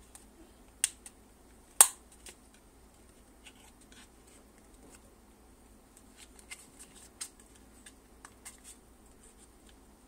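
Small flathead screwdriver prying at the plastic housing of a Mercedes W210 electronic ignition switch, its tip scraping and clicking against the housing's latches. Two sharp clicks come just under a second and about two seconds in, followed by scattered fainter clicks and scrapes.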